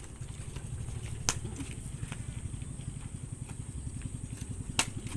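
A small engine running steadily at low revs with a fast, low putter, and a few sharp clicks over it.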